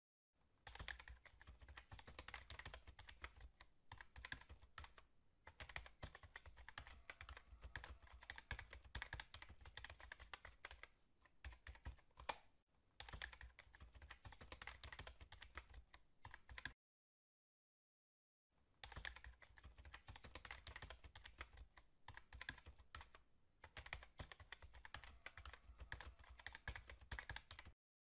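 Rapid computer keyboard typing, a dense run of key clicks. It stops for a second or two a little past the middle, then starts again.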